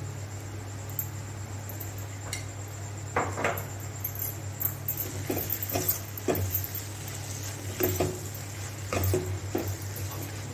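Perforated steel ladle scraping and clinking against a stainless-steel kadai as vegetables are stirred. The knocks are irregular and come more often after about three seconds, over a steady low hum.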